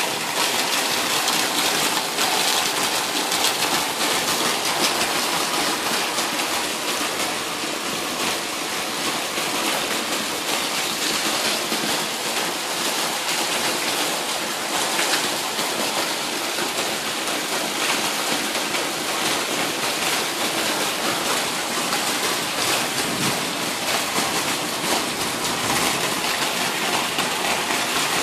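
Heavy monsoon rain pouring down steadily: a dense, even hiss of falling water.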